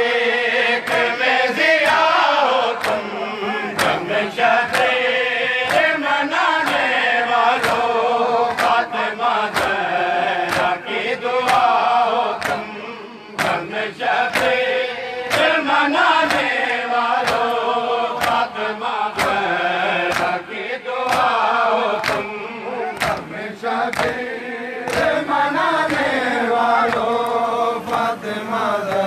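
Crowd of men chanting a devotional verse together in unison, with sharp hand strikes keeping a steady beat behind the voices.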